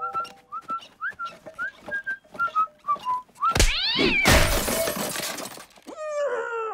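Cartoon soundtrack: a jaunty tune whistled in short, gliding notes, then about three and a half seconds in a loud swooping whoosh and a crash with clattering, and a short falling tone near the end.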